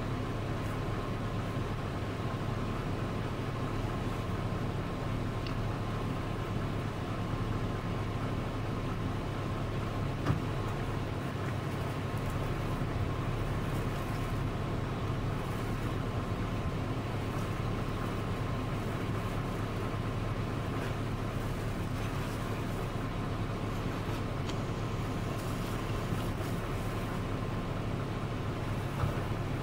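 Vehicle engine idling with a steady low hum, with one sharp click about ten seconds in.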